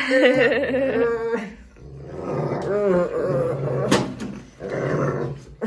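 Newfoundland puppy growling in play, a wavering pitched growl in three bouts, with a sharp tap about four seconds in.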